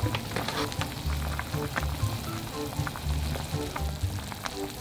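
Thick curry boiling hard in a pan, its bubbles bursting in a rapid, uneven run of small pops. Soft background music with a repeating bass line plays underneath.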